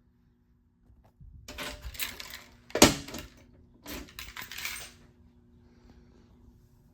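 Clattering, clinking handling noise in two bursts, with one sharp click about three seconds in, the loudest sound.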